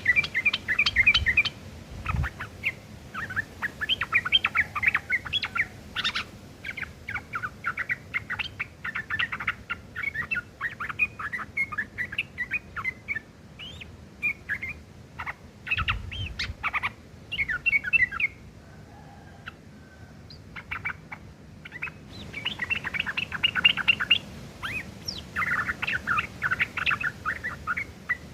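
Sooty-headed bulbul (trucuk) singing a rough, rapid chattering song laced with mimicked long-tailed shrike (cendet) phrases. It comes in fast bursts of notes, with a lull of a few seconds past the middle before the chatter resumes.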